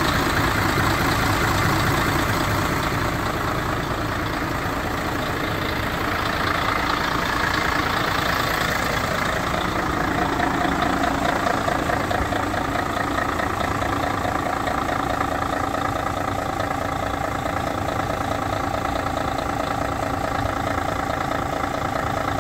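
Mercedes-Benz Actros 1848 tractor unit's V6 diesel engine idling steadily.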